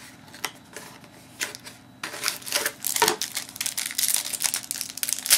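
Trading cards and their plastic packaging being handled: a few scattered light clicks and taps, then, from about two seconds in, a dense run of crinkling and clicking.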